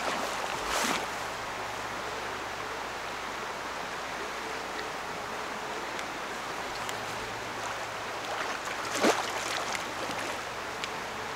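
Steady rush of river water, with two brief splashes, one about a second in and one about nine seconds in, from a hooked Chinook salmon thrashing at the surface.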